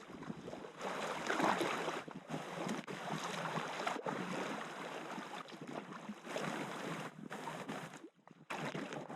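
Irregular splashing and rushing water around a packraft being paddled on a river. The sound cuts out briefly about eight seconds in.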